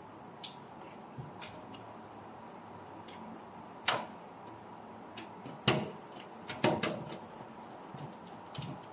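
Irregular small clicks and taps of a screwdriver and wire against the terminal screw of a plug-in circuit breaker in a steel panel box. The sharpest taps come about four seconds in and again around six to seven seconds in.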